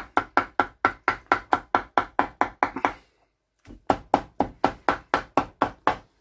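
Large kitchen knife chopping tender, slow-cooked beef on a wooden cutting board: quick, even knocks of the blade hitting the board, about five a second, with a short pause about three seconds in.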